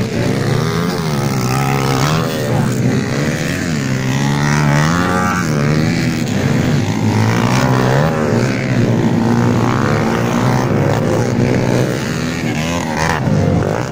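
Several dirt bike engines revving hard and easing off as they race, their pitch rising and falling over and over.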